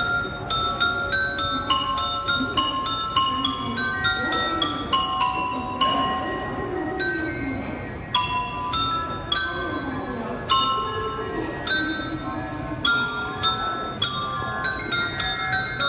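Carillon of white Meissen porcelain bells playing a melody: a quick run of struck, bell-like notes, several a second, each ringing on into the next, with a few slower, longer-ringing notes near the middle. Faint voices murmur underneath.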